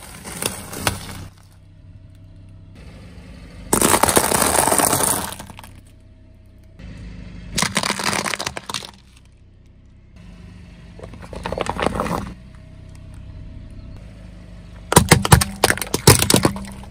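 A car tyre rolling over and crushing one object after another on asphalt: five separate bursts of crunching and cracking, among them a group of aluminium soda cans and small plastic slime barrels, the last a run of sharp cracks. A steady low hum in the gaps is the car's engine running.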